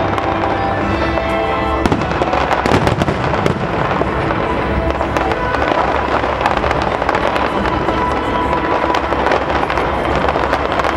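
Fireworks display: dense crackling and popping from many bursting shells, sharp cracks following close on one another throughout, over music with held notes.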